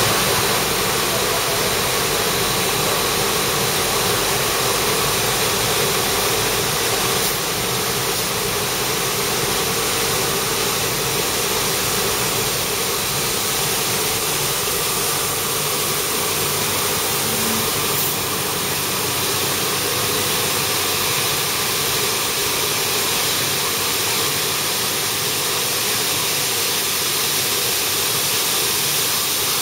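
Plastic film recycling extruder line running: a steady, dense machine noise of motors and hiss.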